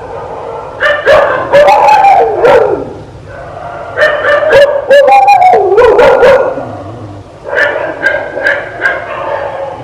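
A dog barking and yelping in three bouts of quick barks, with high whining cries that slide down in pitch.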